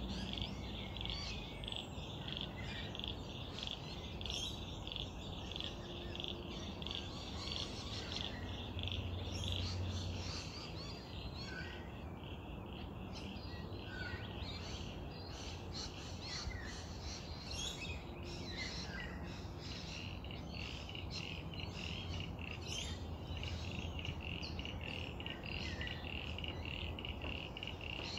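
Frogs and birds calling: a steady, high-pitched pulsing trill with scattered short bird chirps over it, and a low steady rumble underneath.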